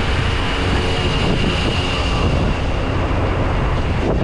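Wind rushing over an action camera's microphone as a bicycle rides down a city street, with a heavy truck's engine running close alongside.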